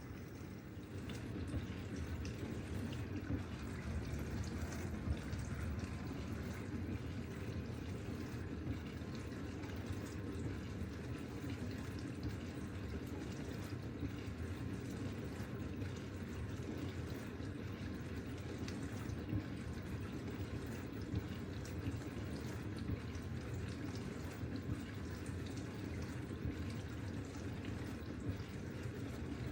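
Miele dishwasher running early in its Gentle cycle: water is sprayed and sloshed around inside the tub with a steady whirring, as the AutoDos unit dispenses detergent into still-cold water. The sound steps up about a second in and then holds steady, with small ticks and splashes.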